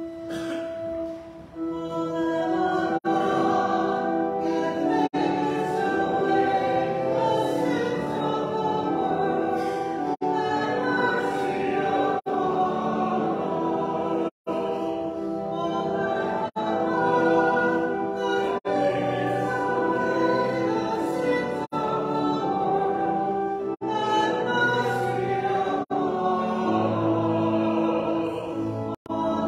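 A choir singing sacred music, a hymn-like piece of held, sustained notes in several voices. The sound drops out for an instant every couple of seconds.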